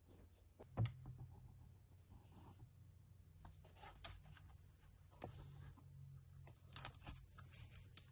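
Faint clicks and rustling of small tools and parts being handled on a workbench, with one sharper click about a second in and a few more clicks near the end.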